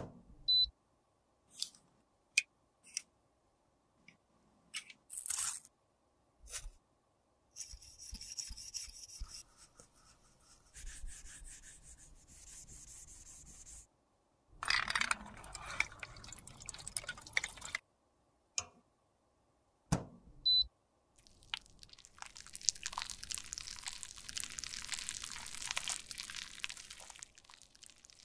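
Close-up handling sounds: a run of separate sharp clicks and taps, then stretches of scraping and rubbing, and a longer crackling hiss in the last few seconds.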